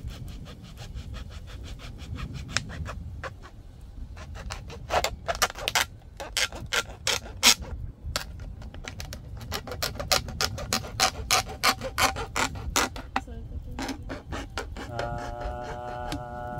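An irregular run of sharp clicks and knocks, at times several a second, over a low rumble. Music with held tones comes in near the end.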